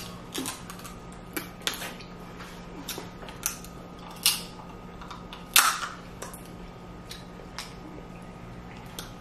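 Snow crab leg shells cracking and snapping, close to the microphone: a string of sharp irregular cracks, the loudest about four and a half and five and a half seconds in.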